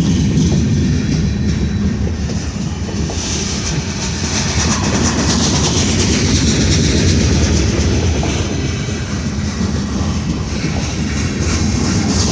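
CSX freight train rolling past, with steady wheel-on-rail rumble and a hiss that grows louder about three seconds in.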